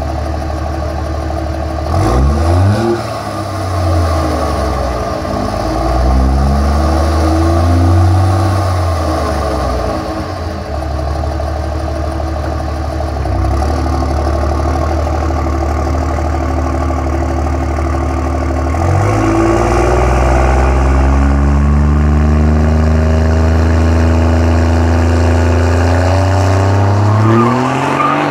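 2007 Dodge Ram 2500's 5.9-litre Cummins inline-six turbodiesel, straight-piped with a 2nd-gen exhaust manifold, idling and revved. It gives a quick blip about two seconds in, a longer rev up and back down, and another brief blip. It then steps up and holds at raised revs for several seconds, rising again near the end as the truck drives off.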